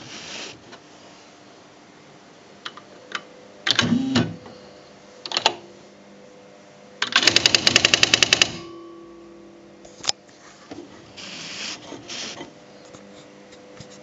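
Smith Corona SD685 electronic typewriter at work: scattered single clicks and short mechanical whirs, then a fast, even run of about fifteen print strikes in a second and a half as it types out a line of characters.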